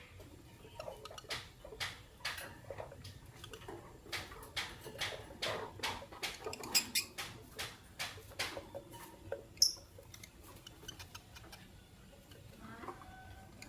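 Lovebirds moving about their cage: a busy run of light clicks, taps and scratches from beaks and feet on perches and wire, with one short, high chirp about nine and a half seconds in.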